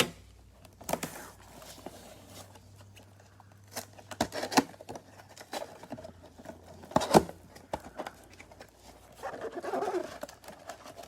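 Trading-card boxes and packs being handled and opened: scattered taps and clicks, the sharpest about seven seconds in, and a stretch of rustling near the end.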